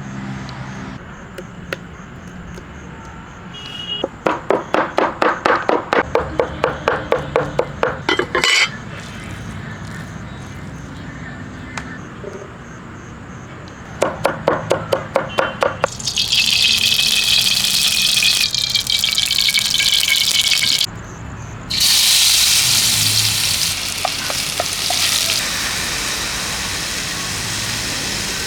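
Cooking sounds: two runs of quick rhythmic strokes at about four a second, then a loud steady hiss that starts about halfway through, breaks off for a moment and resumes.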